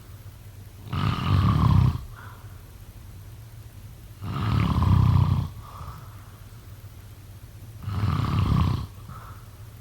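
A person snoring in sleep: three loud, low snores on the breath in, each about a second long and about three and a half seconds apart, each followed by a fainter breath out.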